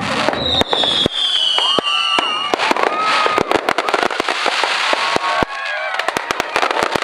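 Fireworks going off in rapid succession: many sharp bangs and crackling, with a whistling firework falling in pitch for about two seconds near the start.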